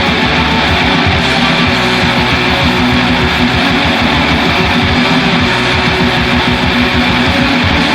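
Black metal song: a loud, dense wall of distorted electric guitars over fast, driving drums, continuous with no break.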